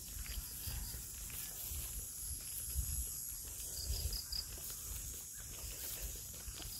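Steady high buzz of an evening insect chorus along a rural road, with four short high chirps about four seconds in. Irregular low thumps of walking with a handheld phone run underneath.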